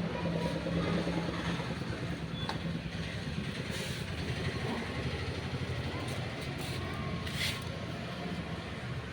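Car wash machine running: a steady mechanical hum with short bursts of hissing about four and seven seconds in.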